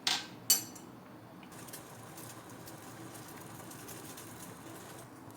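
Two sharp clinks near the start, then a pan of spiced herbal decoction (kashaya) bubbling at a steady boil on high flame, being reduced to half.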